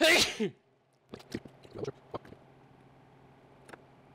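Clicks and light knocks of metal parts being handled on a workbench as a Triumph TR6 wiper motor and its gearbox are reassembled, over a faint steady hum. A brief loud burst opens it, and a cluster of clicks follows about a second later.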